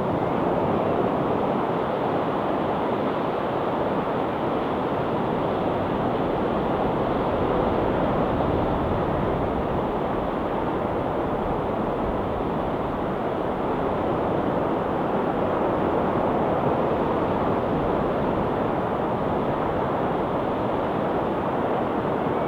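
Ocean surf breaking along a rocky shore: a steady, unbroken wash of waves with no single crash standing out.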